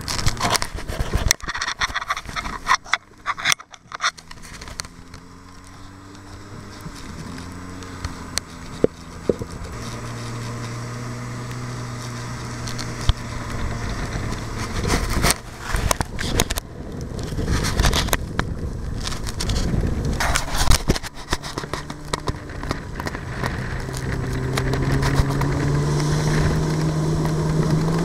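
Snowmobile engine running while towing a wooden sled over snow, its pitch climbing and getting louder near the end as it speeds up. The sled scrapes and clatters over the bumpy snow, with many sharp knocks.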